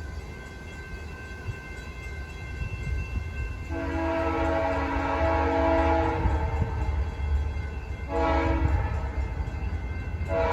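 BNSF 6931's Nathan Airchime K3LP locomotive horn, a rare, harsh-sounding chord, blowing a long blast starting about a third of the way in, then a short blast, then another long blast starting near the end: the long–short–long of a grade-crossing signal. A low rumble of the approaching train runs underneath.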